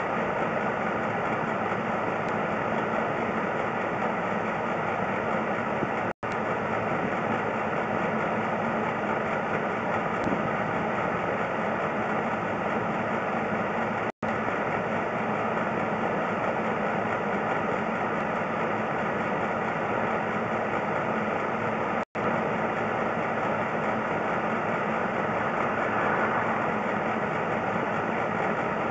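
A steady mechanical drone that cuts out for a moment about every eight seconds.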